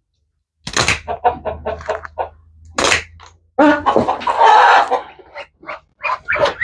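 A duck's wings flapping in a loud burst of about a second as the freshly wing-clipped duck is let down to the ground, with quick runs of short calls from the poultry before and after it.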